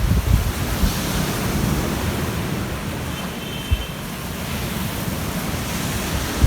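Ocean surf washing onto a beach, a steady rushing wash, with wind buffeting the microphone in low rumbles.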